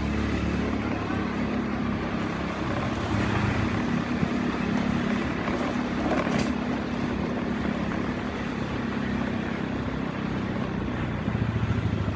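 Small motorcycle engine running steadily at low speed, with a light change in its note near the end.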